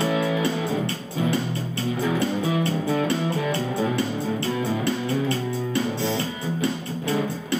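Music: an amplified acoustic guitar played through an overdrive pedal picks out a melody over a steady rhythm.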